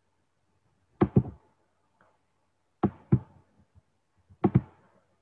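Three loud double knocks: pairs of sharp thuds coming about a second and a half apart.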